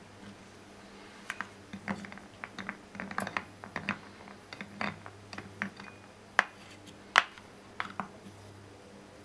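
Metal tines of a small garden hand rake knocking and stirring among dry clay balls in a wooden bowl. It makes a run of irregular light clicks and clatters, with two sharper knocks in the second half.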